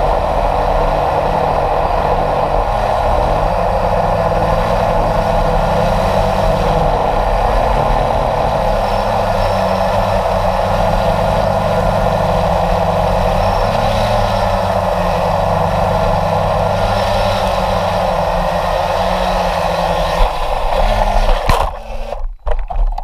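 Model jet aircraft's motor running steadily at high power, heard from a camera on board with wind rushing past. About 20 seconds in come a few sharp knocks and rattles, and the motor sound cuts off.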